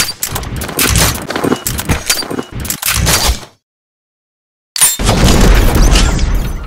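Sound effects for an animated intro: a rapid, irregular run of loud gunshot-like bangs, then about a second of silence, then near the end a single loud boom that rumbles away.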